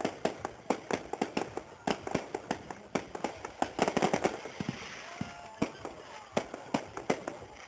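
Fireworks bursting in quick succession: a rapid run of sharp bangs and pops, several a second, thickest about four seconds in.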